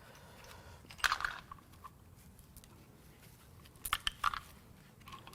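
Loose metal timing-chain parts of a 4.6L DOHC V8 being handled on the bench during teardown. There is a short scraping rustle about a second in, then a few sharp clinks close together about four seconds in.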